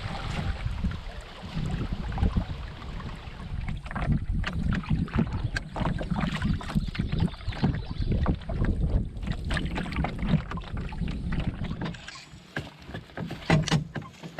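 Canoe being paddled: irregular splashes and knocks of paddles in the water, over wind rumbling on the microphone that drops away about twelve seconds in.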